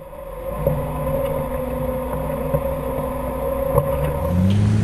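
Off-road Jeep's engine running steadily at crawling pace, heard from a camera mounted low beside the front tire, with a few light knocks from the trail. About four seconds in, the engine note rises and falls as it revs.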